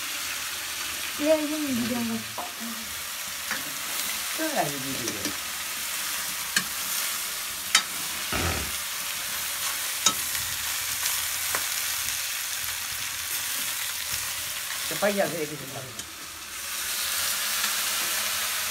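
Food sizzling as it fries in a pan, with a utensil stirring and now and then ticking against the pan. The sizzle grows louder near the end.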